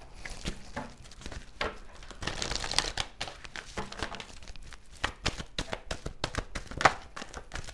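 A deck of oracle cards shuffled by hand: quick, irregular papery flicks and clicks of cards slipping against each other, with one sharper snap near the end.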